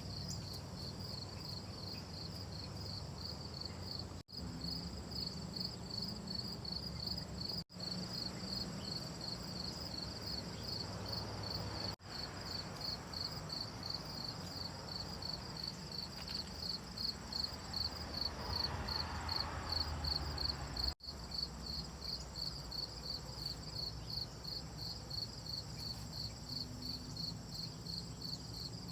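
Crickets chirping in a steady, rapid rhythm of high pulses, several a second. The sound drops out completely for a moment four times, and a soft rushing swells in the middle.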